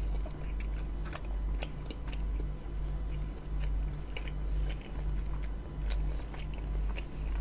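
Close-miked chewing of a mouthful of roti John, soft bread with minced-meat filling, with small wet mouth clicks over a low rumble that swells and dips with the chewing.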